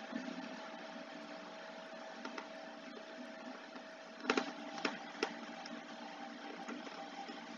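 Faint steady background hum and hiss, with a few sharp clicks a little past the middle.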